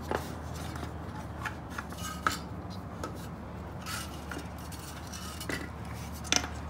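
Scattered light clinks and knocks, about five over a few seconds, with a double knock near the end, as a Yamaha YFZ450's oil tank is worked loose and lifted out of the frame.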